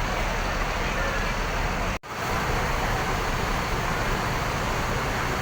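Steady roadside traffic noise with no horn sounding, cut off sharply for an instant about two seconds in.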